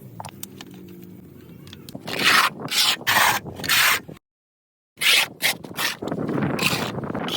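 Scrubbing a water tank: a few faint clicks, then about four loud, rough scrubbing strokes about two seconds in. The sound cuts out abruptly for under a second, then more strokes and continuous scrubbing follow.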